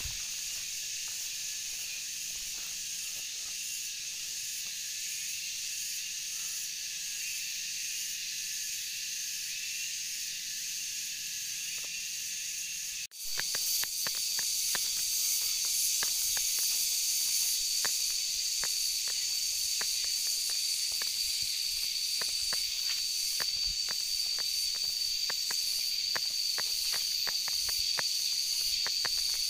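Steady chorus of forest insects, several high buzzing tones held together. About 13 seconds in it cuts off and gives way to a louder, higher insect drone, with light footsteps ticking on the dirt trail.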